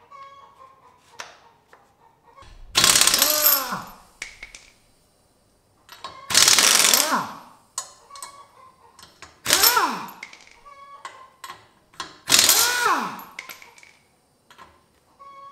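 Kobalt pneumatic impact wrench zipping lug nuts off a car wheel in four bursts of about a second each, its whine falling away as each burst ends. There are faint clicks and clinks in between.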